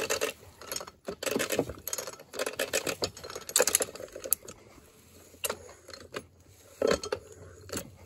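Hand-lever setworks of an antique Forano sawmill carriage being worked back and forth: irregular metallic clicks and clanks of the lever, pawl and toothed gear, in several runs with short pauses. The mechanism works as it should.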